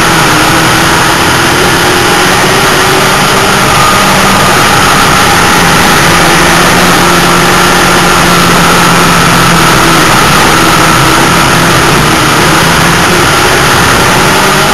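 Race car engine running hard under racing load, heard from inside the car. The sound is loud and continuous, with the engine note rising and falling slightly.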